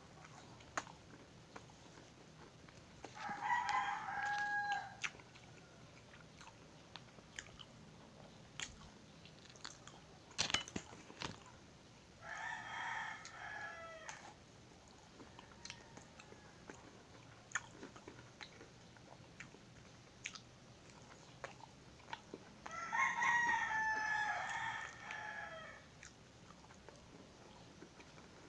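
A rooster crows three times, each crow about two seconds long, the last one falling away at its end. Between and under the crows come close biting and chewing of a fried empanada, with small mouth clicks.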